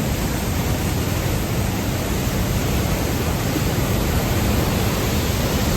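Powerful waterfall roaring: a steady, loud rush of falling water heard from right at the edge of the falls.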